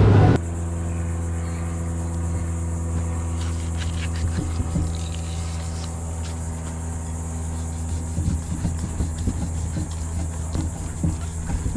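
A moment of boat engine and rushing water that cuts off about half a second in, then a steady low hum, over which a knife cutting into a whole tuna makes scattered soft clicks and scrapes.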